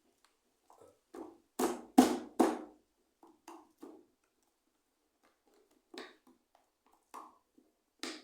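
Scattered clicks and knocks of an electric fan being reassembled by hand. Three louder knocks come in quick succession about two seconds in.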